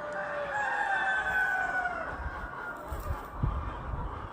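A barn full of roosters crowing, several long drawn-out crows overlapping and trailing down in pitch. A brief low rumble comes a little past three seconds in.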